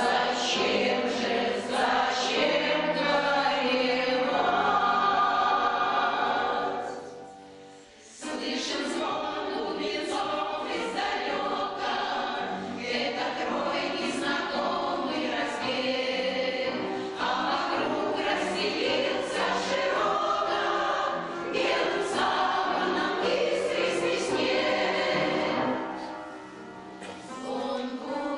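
A choir singing, with short breaks between phrases about seven seconds in and again near the end.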